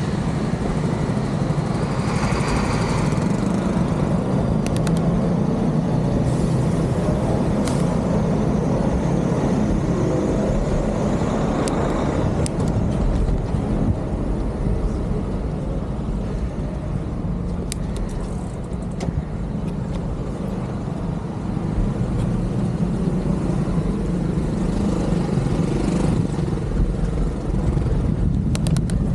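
Steady city traffic noise from cars on a rain-wet road, heard from a bicycle riding among them, with a few short clicks scattered through.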